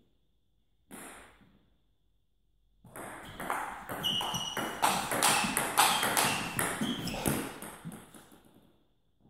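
Table tennis rally: the ball clicks rapidly back and forth off the rackets and the table for about five seconds, starting about three seconds in. One short knock comes about a second in.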